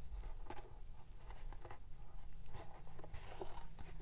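Faint handling sounds as fingers work an elastic hair tie through a hole in a card journal cover: light rubbing of paper and card with scattered small clicks and taps.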